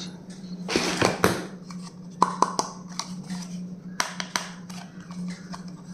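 Stationery items being handled: a short rustle about a second in, then a string of sharp clicks and taps, over a steady low hum.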